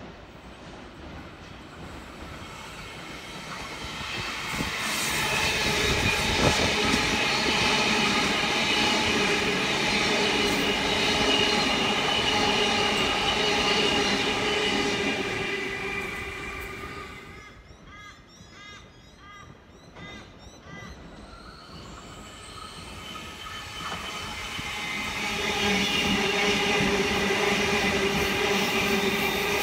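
Two double-deck electric trains passing a platform one after the other. First an NSW TrainLink V-set intercity train builds to a loud steady pass with a whine of several pitches, then fades away about 17 seconds in. After a short quieter lull, a Sydney Trains Tangara suburban train approaches and passes loudly, with the same kind of whine.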